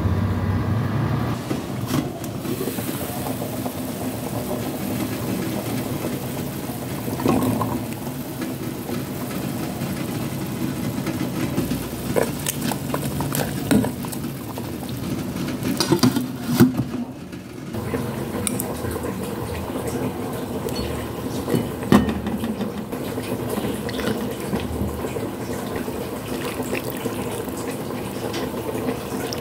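Beef-bone and carrot soup being ladled from a steel pot onto a plate with a plastic ladle: liquid sloshing and pouring, with a few short knocks of the ladle against the pot, over a steady low background hum.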